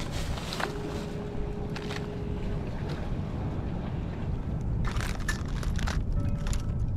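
Steady low wind rumble on the microphone with the sea behind it, and the crinkling of plastic bait bags being handled, thickest about five to six seconds in.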